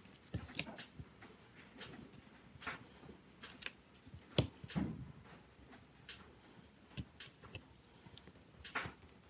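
Irregular small plastic clicks and taps as the housing parts of a Nokia C2-01 mobile phone are handled and pressed together, with one louder click about four and a half seconds in.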